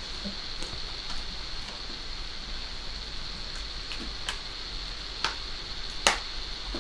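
A few scattered light clicks and taps of a phone box and its packaging being handled and opened, the sharpest near the end, over a steady background hiss.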